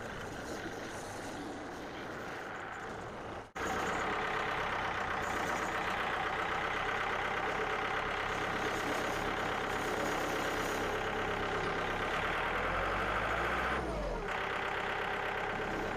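Engine running steadily. It cuts out abruptly for a moment about three and a half seconds in, then runs on, with a brief low drop in pitch near the end.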